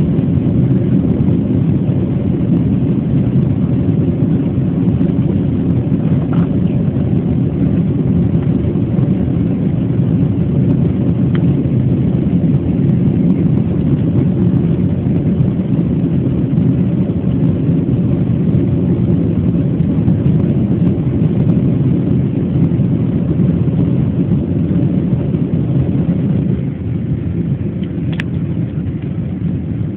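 Jet airliner cabin noise after take-off: a steady, loud rumble of engines and airflow heard from inside the passenger cabin. It drops a little in level near the end, with a short click just after.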